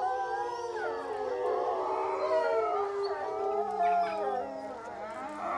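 A pack of wolves howling together in chorus, several voices at different pitches overlapping and gliding up and down, with a deeper howl joining about three and a half seconds in.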